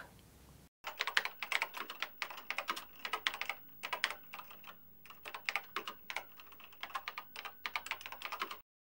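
Keyboard typing sound effect: rapid, irregular key clicks in uneven runs, starting a moment in, thinning briefly midway and stopping abruptly near the end.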